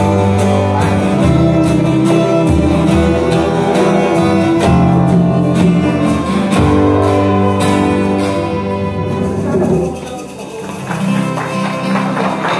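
Live acoustic folk band playing: strummed acoustic guitars with bowed violin. The music drops briefly about ten seconds in, then picks up again.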